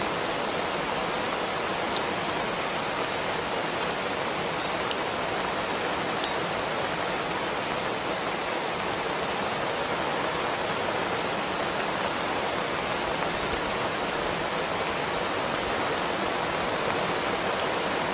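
Steady rain shower falling, an even hiss with a few faint sharper drop ticks scattered through it.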